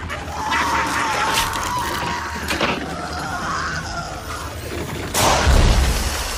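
Horror-film sound effects of a swelling body bursting. A long, steady high whine rises slightly partway through, then a loud burst with a deep thump about five seconds in.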